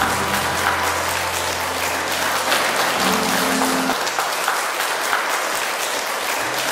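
A crowd of wedding guests applauding, with many hands clapping steadily throughout.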